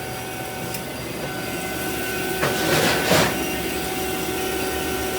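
Refrigeration vacuum pump running steadily with a constant hum while it evacuates the refrigerator's sealed system, with a short whooshing hiss about halfway through.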